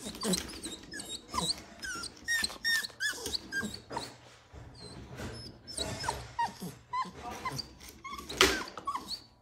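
Dog whining and yelping: many short, high, squeaky cries one after another, with one louder sharp sound about eight seconds in.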